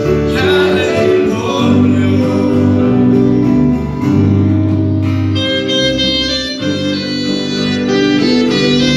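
Live worship band playing a Spanish-language hymn: a male voice sings over bass, keyboard, guitars and congas, and about five seconds in the voice gives way to a sustained instrumental melody over the band.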